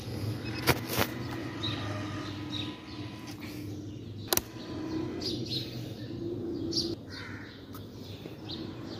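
Birds chirping in short calls scattered throughout, over a low steady hum. Three sharp clicks stand out, two close together about a second in and one near the middle.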